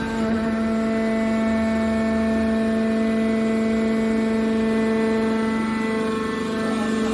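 Hydraulic metal baler running: a steady, pitched machine hum from its pump and motor.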